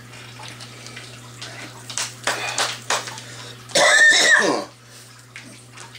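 A man coughing from the burn of an extremely hot habanero sauce: a few short coughs about two seconds in, then a louder, longer cough about four seconds in. A steady low hum runs underneath.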